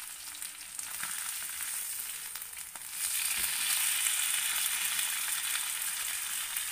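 Masala-coated fish shallow-frying in hot oil, a steady sizzle with small crackles, as the pieces are turned with a wooden spatula. The sizzle grows louder about three seconds in, as a piece is flipped onto its uncooked side.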